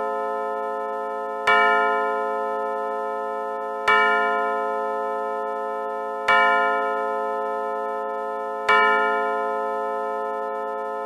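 Rhythm WSM quartz chime movement sounding its hour strike: a bell-like gong tone struck four times about 2.4 seconds apart, each stroke ringing on and fading slowly into the next.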